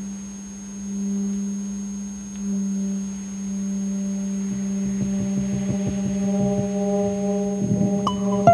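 Music: a sustained low drone note, with quieter held notes joining in partway through and plucked notes starting near the end.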